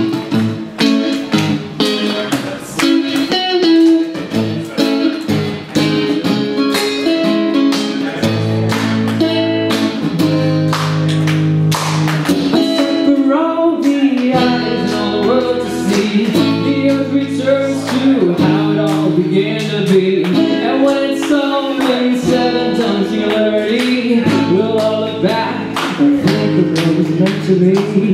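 Acoustic guitar strummed live, with a man singing over it. The first few seconds are quick, dense strumming; from about eight seconds in, the chords ring out longer.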